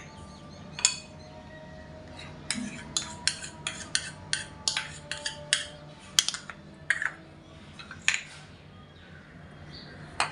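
A metal spoon clinking and tapping against glass bowls, with a quick run of about a dozen sharp clinks at roughly three a second, then a few more separate clinks near the end, as spices are knocked off the spoon into the chicken marinade.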